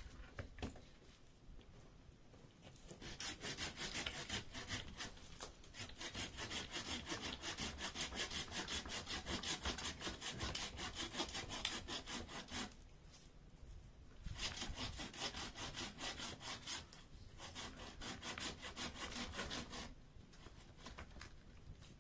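Hand saw cutting through firewood with quick, regular back-and-forth strokes, in two long runs with a short pause between them, stopping near the end.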